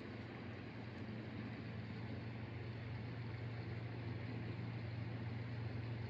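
A steady low background drone with an even hiss over it, unchanging and with no distinct events.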